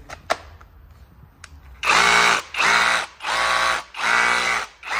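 Cordless hammer drill (rotary hammer) briefly triggered with no load. After a sharp click, the trigger is pulled about five times in quick succession from about two seconds in, and each pull spins the motor up with a rising whine and then lets it stop.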